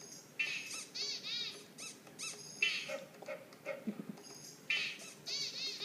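Quick, high-pitched squeaks in short runs, about four to five a second, from a baby licking and smearing yogurt on a high-chair tray.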